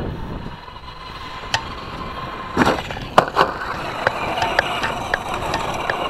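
Traxxas Slash 2WD RC truck's brushed electric motor whining steadily while the truck rolls over dirt, with sharp knocks and clatter from the chassis and tyres hitting the ground, loudest about two and a half to three and a half seconds in. It runs on a nickel-metal hydride pack that is already losing power.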